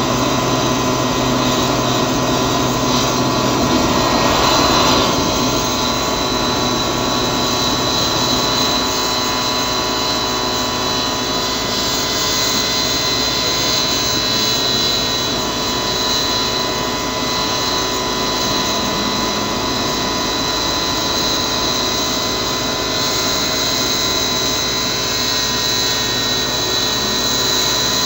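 Homemade tin-can jet engine running continuously: a steady rushing roar with a high whine over it, swelling briefly about four seconds in.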